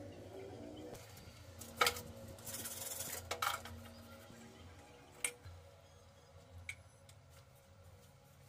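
Handling sounds of CPVC pipe, fittings and a tape measure: sharp plastic clicks and knocks, and a short hiss that ends in a click near the middle, then quieter scraping.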